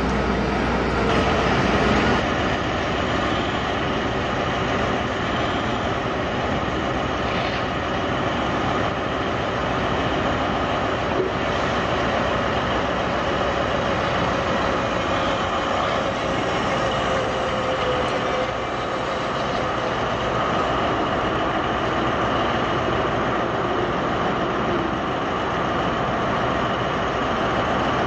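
Steady, unbroken mechanical noise of heavy machinery running.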